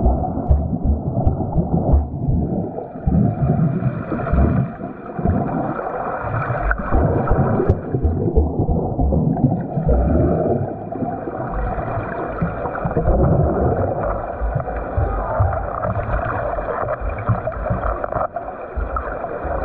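A swimmer's arm strokes pulling through water during a catch drill: continuous muffled churning and gurgling with irregular low surges, mostly dull with little high sound.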